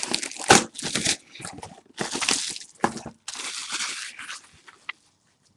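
Plastic packaging crinkling and rustling in the hands, in a string of uneven bursts that stop about five seconds in.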